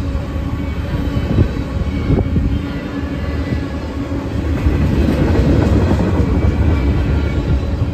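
Freight train tank cars rolling over a grade crossing: a steady rumble of steel wheels on rail, with a few sharp wheel clacks. It grows louder about halfway through.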